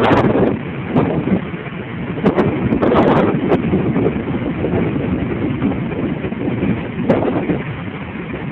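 Big storm waves breaking and surging against a pier, swelling loudest at the start, about three seconds in, and again about seven seconds in. Wind buffets the microphone.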